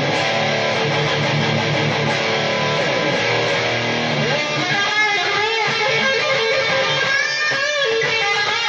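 Electric guitar music, strummed, with bending lead lines from about halfway through.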